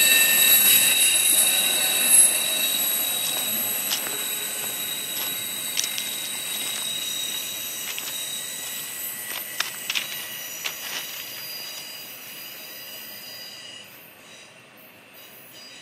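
Freight train of intermodal well cars pulling away, its brakes and wheel flanges squealing in several steady high tones as it slows for a tight curve. The squeal fades steadily as the train recedes, with a few sharp clicks along the way.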